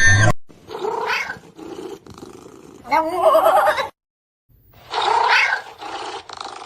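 A cat meowing in several drawn-out, wavering calls, with a short silent break in the middle.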